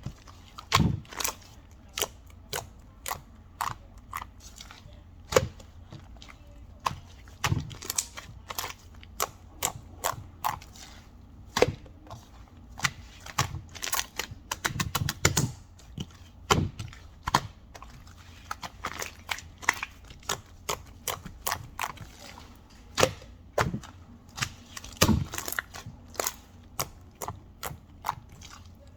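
Irregular sharp clicks and taps, some spaced out and some in quick runs, as of something hard being tapped or clicked repeatedly.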